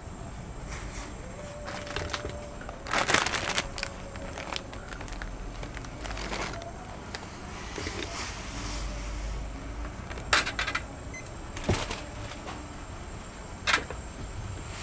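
Clinks and knocks of cookware and utensils being handled while cooking, a handful of louder strikes spread through, over a steady low background hum.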